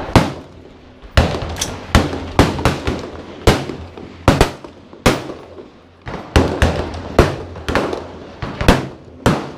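Gunshots at a shooting range: about fifteen sharp shots in irregular succession, each followed by a short echo.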